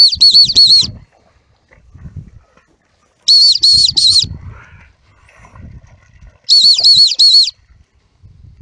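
Handler's dog whistle blown in three bursts of three or four short, shrill pips a few seconds apart, a recall signal to a dog coming back with a retrieve. Faint low rustling in between.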